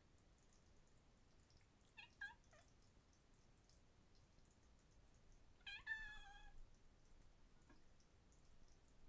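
Kitten meowing: a couple of short, high meows about two seconds in, then one longer meow, about a second long and falling slightly in pitch, a little past the middle.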